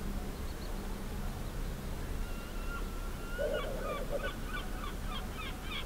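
A bird calling over a low steady rumble: a drawn-out note about two seconds in, then a quick run of short repeated notes, several a second, to the end.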